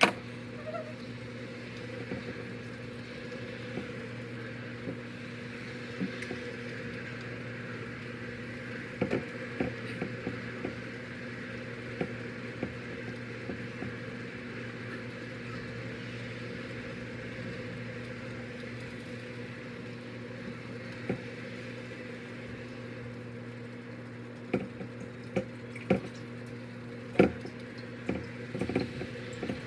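Kitchen sounds: a steady hum under an even hiss of water or simmering liquid, with scattered light knocks and clinks, several close together near the end.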